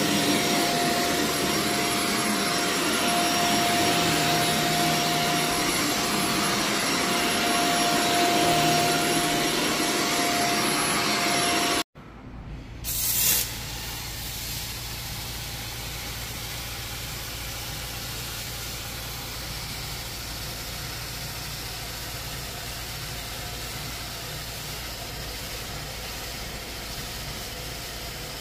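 Carpet-cleaning extraction machine running with a steady high whine, which cuts off abruptly about twelve seconds in. After a brief loud burst, a quieter steady low engine hum takes over.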